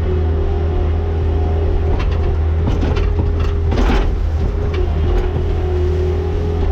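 Engine of a farm machine running steadily with a constant low hum, and a couple of brief rasping noises about two and four seconds in.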